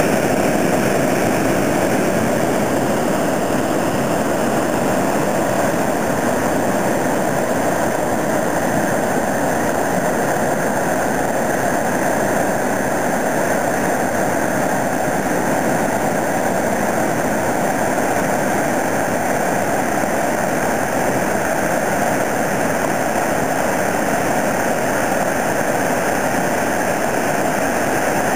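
Waterfall: falling water makes a steady, even rush that does not change in level.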